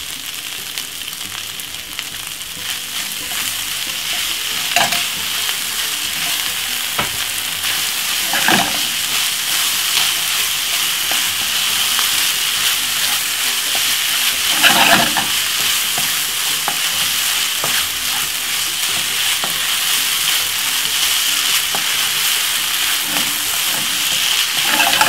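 Fried rice and vegetables sizzling in a nonstick frying pan while a wooden spoon stirs through them: a steady hiss with a few louder scraping strokes.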